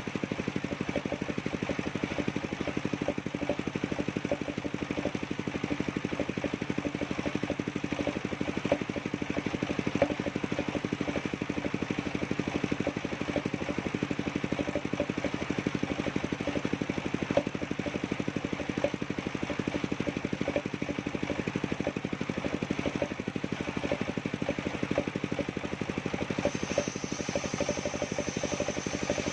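Engine of a portable circular sawmill running steadily with a fast, even firing beat; a steady high whine joins near the end.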